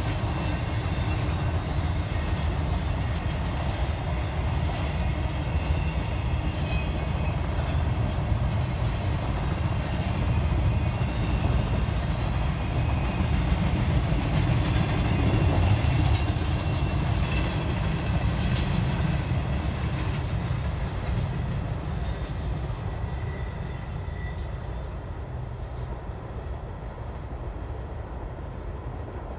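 Intermodal freight train's container cars rolling past on the rails: a steady rumble with sharp wheel clicks, growing louder through the middle and then fading away over the last several seconds as the train recedes.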